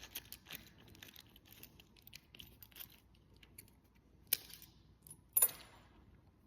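Faint clicking and clinking of small metal keys being handled and taken off, with two sharper metallic clicks a little over four and five seconds in, the second with a brief ring.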